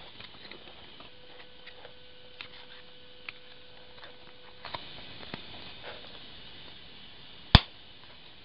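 Light plastic clicks and taps as a bass-knob controller is pressed into a hole cut in a dash trim cover, with one sharp, loud click near the end.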